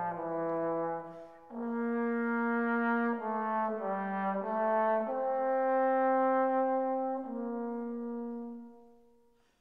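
Background music: a slow melody of long held notes, with a short dip about a second in and a fade-out near the end.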